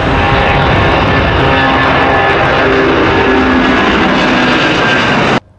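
A loud, steady jet-airliner engine roar with a melody playing over it, which cuts off abruptly near the end.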